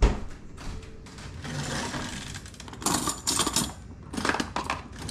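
A thump, then a few short bursts of rattling and clinking kitchen utensils.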